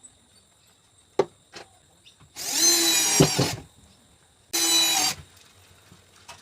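Electric drill running in two short bursts, the first about a second long and the second shorter, its motor giving a steady whine. Two sharp knocks come about a second in.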